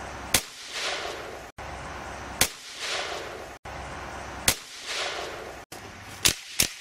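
Semi-automatic .22 rifle shots: five sharp cracks, the first three about two seconds apart, each followed by a short rolling echo, then two quicker shots close together near the end.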